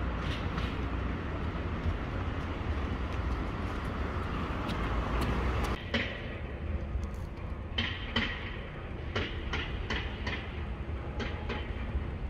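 Construction site noise: a steady low rumble of machinery, joined about halfway through by irregular clanks and knocks.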